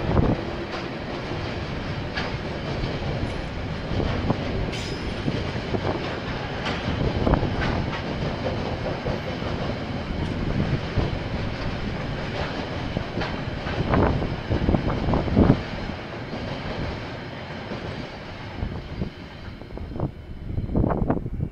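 Freight train wagons rolling past, a continuous rumble with repeated clatter of the wheels over rail joints.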